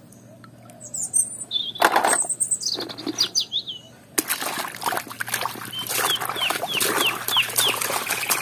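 Small birds chirping in the background. From about four seconds in, water splashing and sloshing as muddy toys are scrubbed by hand in a plastic tub, while a bird gives a quick run of short repeated chirps.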